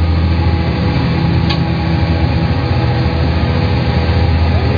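Fishing boat's diesel engine running at a steady speed, heard inside the wheelhouse as a loud, even, low drone.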